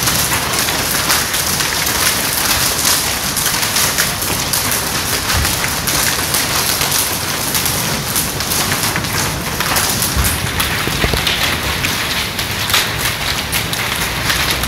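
Hail falling on paved ground: a steady, dense patter of small hard impacts that keeps up without a break.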